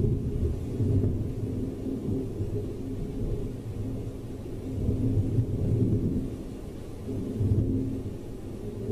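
Rolling thunder: a low rumble that swells and fades, loudest near the start, again about five seconds in, and again about seven and a half seconds in.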